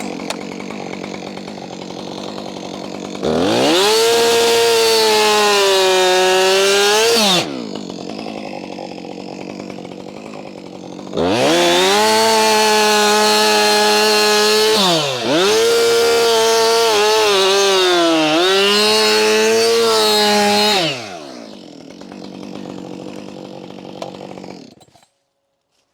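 Chainsaw idling, then revved to full throttle twice to cut through a log, a short cut and then a longer one, its pitch sagging and wavering under load before it drops back to idle. The engine stops near the end.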